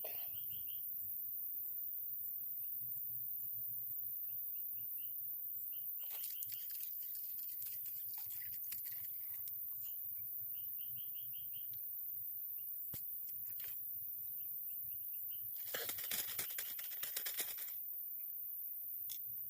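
Short high chirps repeating in quick little runs, with two spells of rustling or scraping, the louder one near the end.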